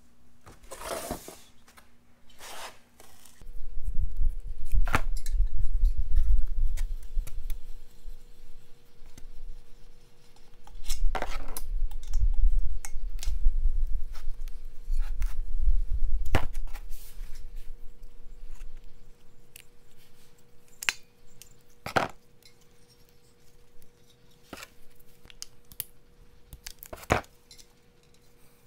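Metal parts of a KT100 two-stroke kart engine clinking and knocking as they are handled and fitted by hand on a workbench, with scattered sharp taps. A low rumble comes in about three seconds in and again from about eleven seconds, the loudest sound here.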